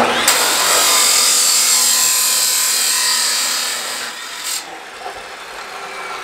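Power saw cutting through metal stock: a loud, harsh cutting noise that starts suddenly, holds for about four seconds, then dies away with a short knock.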